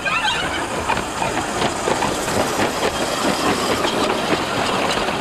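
Quarter-scale streetcar running along its track: a steady rolling rumble of wheels and drive on the rails, with a few faint clicks.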